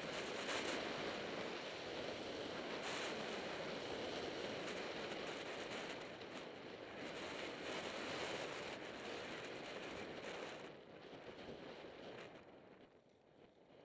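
Skis hissing and scraping over packed, groomed snow, mixed with wind rushing over the microphone, as a steady noise with a few brief swells. It dies away about eleven seconds in and is quietest near the end.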